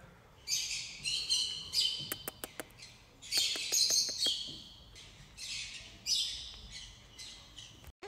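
Small green macaws giving about six harsh squawks spread through a few seconds, with a quick run of clicks about two seconds in. These are the squawks of a tense first meeting between two macaws.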